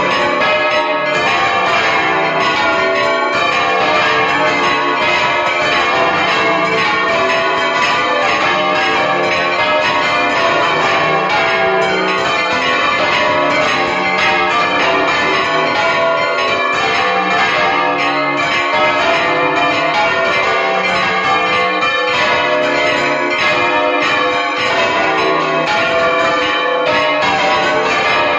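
Two large bronze church bells on counterweighted wooden yokes, swung full circle by hand and rung in alternation, their strokes coming thick and fast in a continuous loud peal.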